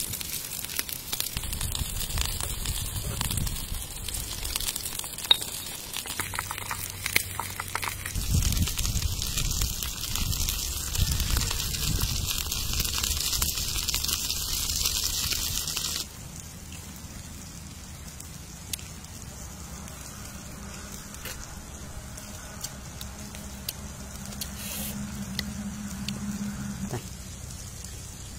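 Open wood fire crackling while chili is pounded in a stone mortar, with dull thuds among the crackles. About halfway through the sound drops off suddenly to quieter handling of food and bowls.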